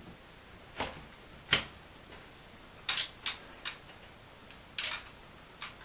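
Scattered sharp clicks and knocks of hard plastic and metal parts inside a PC case as a bent acrylic coolant tube is pushed into its fitting, the loudest about a second and a half in and a short scrape near the end.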